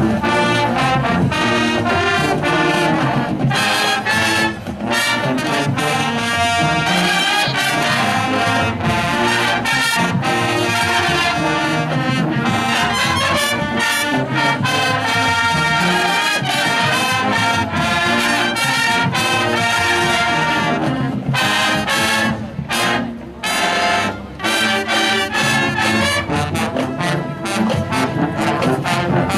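High school marching band playing its field show, led by brass with trumpets, saxophones and sousaphones. The music is loud and dense, with a few sharp hits and short stops about three-quarters of the way through.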